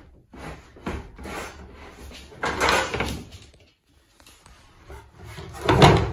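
Wooden futon slats being handled and set into the log frame: irregular wooden knocks and scraping rattles, the loudest clatter just before the end. The slats are a snug fit in the frame.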